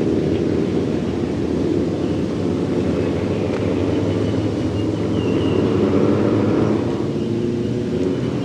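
Loud engines of a line of motorcycles, mostly choppers and homemade bikes, riding past in a steady low rumble that swells about six seconds in and eases off near the end.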